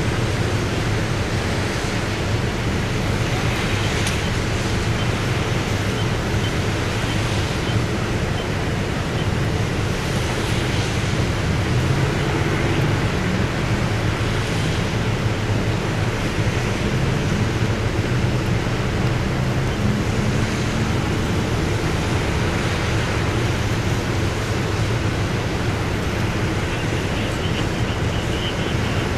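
Steady roadside roar: an idling fire engine and traffic passing on wet pavement, with wind on the microphone.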